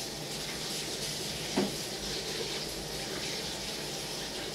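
Kitchen tap running steadily into the sink, with a single short knock about a second and a half in.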